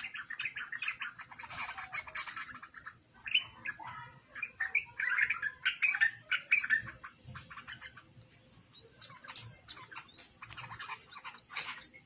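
Light-vented bulbuls chirping and chattering in fast runs of short notes, with short lulls about three seconds in and again around eight seconds.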